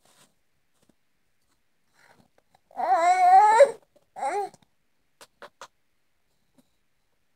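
A toddler babbling: one long wavering, pitch-sliding utterance about three seconds in, then a short one right after.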